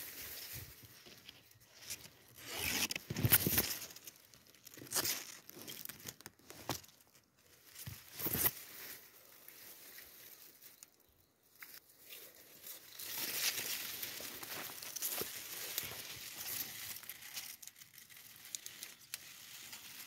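Tall grass and leafy undergrowth rustling and crackling in irregular bursts as someone pushes through on foot, with a few sharp cracks.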